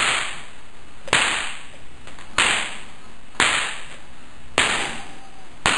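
A boy slapping himself hard with an open hand, six sharp smacks about once a second, each with a brief hissy tail.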